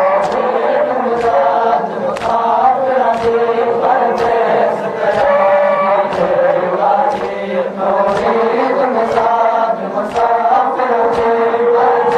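Men's voices chanting a noha, a Shia lament, together, with sharp claps of matam (hands striking chests) keeping time about once a second.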